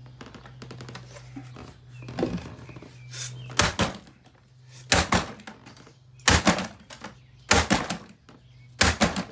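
Hammer blows on the plastic ball canister of a Dyson Big Ball vacuum cleaner: five sharp strikes, evenly spaced a little over a second apart, starting about three and a half seconds in. A steady low hum runs under the first few seconds and stops at the first blow.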